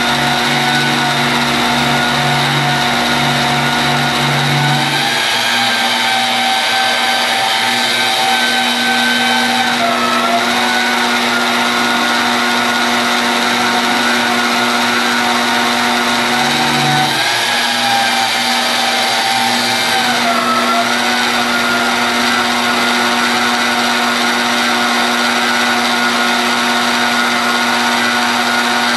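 Magnetic drill running, its motor whining steadily as an annular cutter bores through steel; the pitch sags briefly now and then as the cutter bites.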